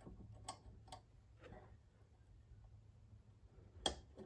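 A few faint, scattered clicks and taps of a small-engine carburetor and its spring throttle linkage being handled and seated on the engine, the sharpest click a little before the end, over a low steady hum.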